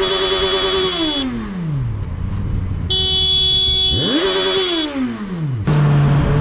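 Motorcycle engine revved hard twice: each time it climbs quickly, holds high briefly and then winds back down, revved at a car that cut in. Between the two revs a horn sounds for about a second. Near the end it cuts to a motorcycle cruising at a steady engine note.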